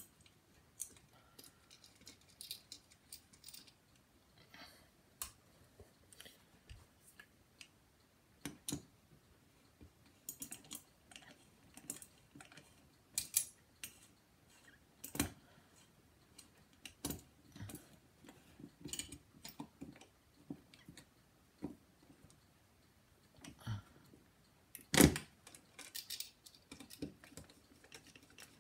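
Ceiling fan parts and small hardware being handled: irregular clicks, clinks and light knocks, with one louder knock about 25 seconds in.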